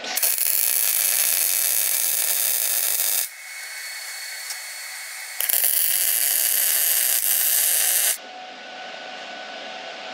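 Electric arc welding on a Dana 60 axle housing: two welding runs of about three seconds each, a steady crackling hiss that stops for about two seconds between them.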